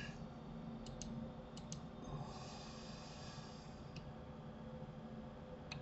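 A few scattered soft clicks of a computer mouse and keyboard, over a faint steady electrical hum, with a brief soft hiss about halfway through.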